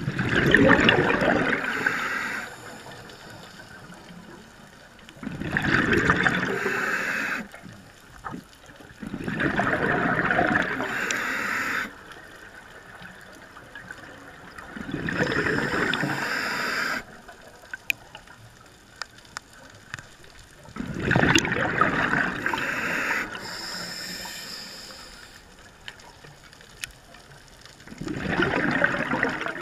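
Scuba diver breathing through a regulator underwater: a gush of exhaled bubbles about every five to six seconds, each lasting about two seconds, with a quieter hiss between breaths and a few faint clicks.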